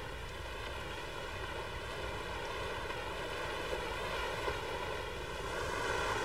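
Land Rover Discovery Series II wading slowly through a shallow stream: a steady rush and swish of water pushed around the wheels, with the engine running underneath and a steady wavering hum throughout.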